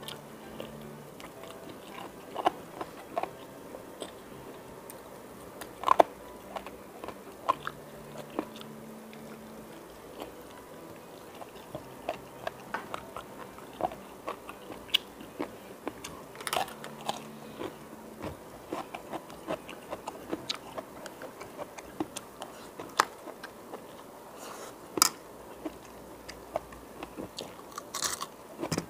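Close-up mouth sounds of a person eating grilled chicken and rice by hand: chewing, biting and wet lip smacks, in short irregular clicks several times a second. A few louder smacks stand out, the loudest about six seconds in.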